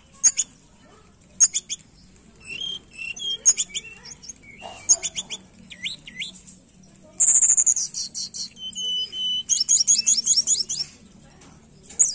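Tledekan gunung singing a varied song: short sharp chirps and whistled notes, then a run of fast repeated notes about seven seconds in, followed by a held whistle and a quick trill.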